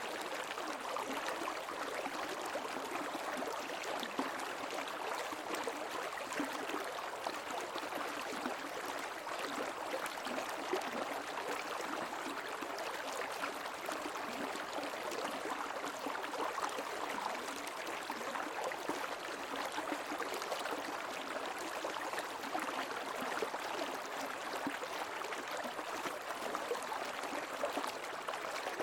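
Creek water running and gurgling steadily over stones.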